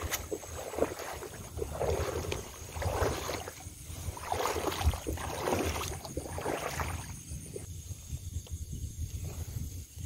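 Footsteps wading through shallow floodwater, a splashing swish about once a second, easing off after about seven seconds, over a low rumble of handling noise on the microphone.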